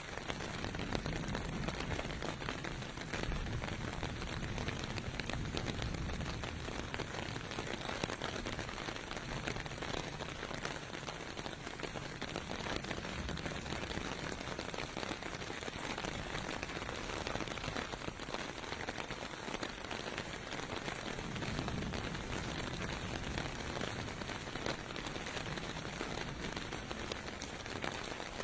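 Steady rain falling on pavement, a dense even patter. A low rumble of distant traffic swells and fades a few times underneath it.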